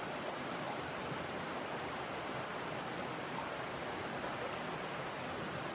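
A steady, even rushing hiss with no distinct events.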